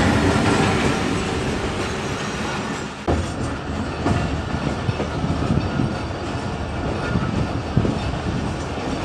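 Pakistan Railways ZCU-30 diesel-electric locomotive 6307 and its passenger coaches passing at close range: a loud, steady rumble, heaviest as the locomotive goes by at the start, then the coaches rolling past with repeated wheel knocks about once a second.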